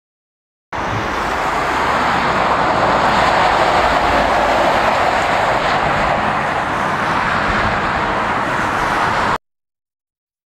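Scania truck with a curtainside semi-trailer driving past and away over a road bridge: a steady hiss of tyres with engine rumble underneath, strongest a few seconds in and easing slightly after. It starts abruptly about a second in and cuts off abruptly well before the end.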